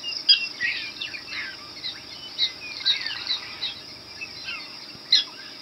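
Black-tailed prairie dogs barking an alarm chorus: many short, sharp, high yips from several animals, overlapping at irregular intervals, with a loud pair near the end. The calls are a warning that a coyote is near.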